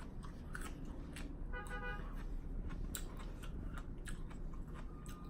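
Close-up chewing and crunching of a lettuce wrap, irregular wet crisp clicks of lettuce and vegetables being bitten and chewed, with a brief pitched tone about two seconds in.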